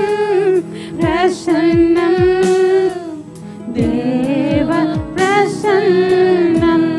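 Woman singing a Tamil Christian worship song with vibrato over backing music, with steady keyboard tones and a drum beat. Her voice breaks off briefly about three seconds in before the next line.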